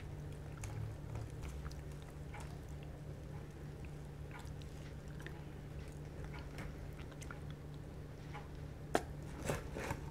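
Faint crackles and crunches of crispy fried chicken being torn apart by hand and chewed, with a sharper crunch about nine seconds in.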